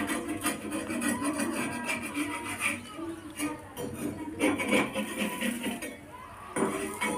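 Steel spatula scraping and rubbing across a tawa, working under a frying omelette to loosen it, in short irregular strokes.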